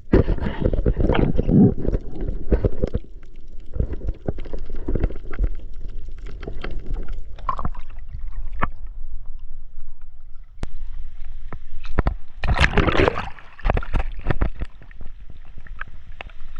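Sea water sloshing and gurgling around a camera held underwater and at the surface, with a muffled low rumble and many sharp clicks and knocks from handling. A louder burst of splashing comes a little past the middle.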